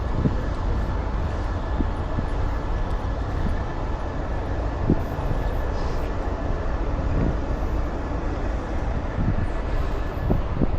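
Steady outdoor city background noise: a continuous low rumble of urban traffic with a few faint knocks scattered through it.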